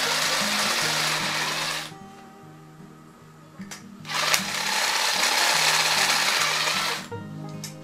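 Cordless impact driver with a step drill bit boring into a small metal piece, running in two bursts of a few seconds with a short pause of small clicks between.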